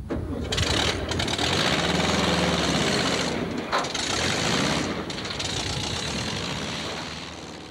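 A vehicle engine running with a loud rattling clatter, steady throughout and easing off slightly near the end.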